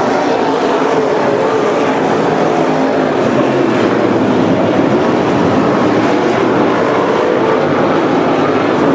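Several dirt-track modified race cars' V8 engines running hard at racing speed, a steady loud blend of engines rising and falling in pitch as cars pass.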